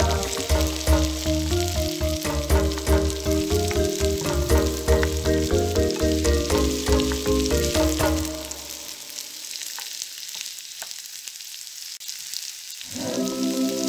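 Chopped onion and bell peppers sizzling in an oiled frying pan while a wooden spatula stirs them. Background music with a bass line plays over the sizzle, drops out a little past halfway, and comes back near the end.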